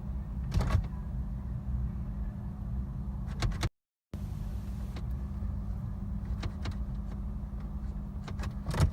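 Automatic transmission gear selector being shifted between positions, a few separate sharp clicks over a steady low rumble. The shifter is not registering park, and the car will not start.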